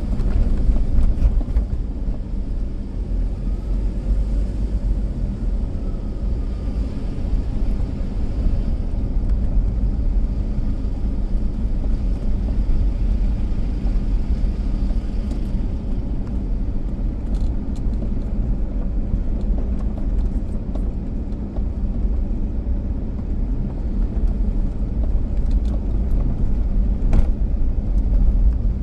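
A car driving, with a steady low rumble of engine and road noise and a brief knock near the end.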